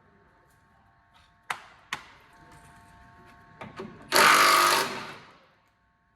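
Two sharp metallic knocks and a few lighter clicks on car parts, then a loud burst from a power tool lasting about a second that fades out quickly.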